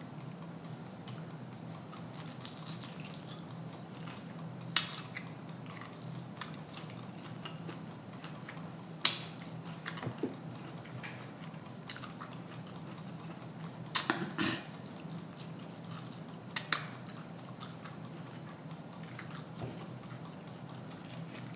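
A person chewing and biting into fried food close to the microphone, with scattered sharp mouth clicks and smacks, the loudest about two-thirds of the way through, over a steady low hum.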